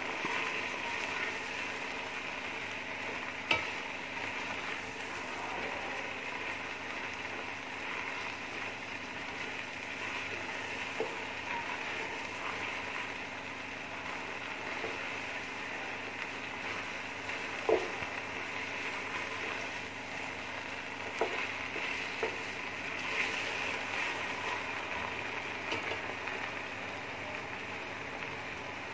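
Mutton pieces sizzling steadily in hot oil in an aluminium pressure cooker as they are browned, stirred with a slotted spoon. A few sharp knocks of the spoon against the pot, the loudest about 3.5 and 18 seconds in.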